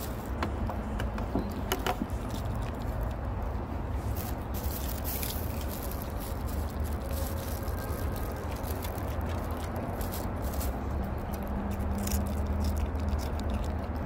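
Maltese dog chewing crisp cucumber chunks, with scattered sharp crunches and the crinkle of the plastic bag it noses into, over a steady low background rumble.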